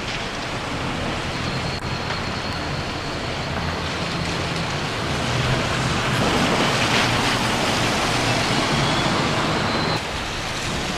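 Steady road traffic on wet streets below, a dense hiss of tyres and engines, swelling a little past the middle and dropping suddenly at about ten seconds.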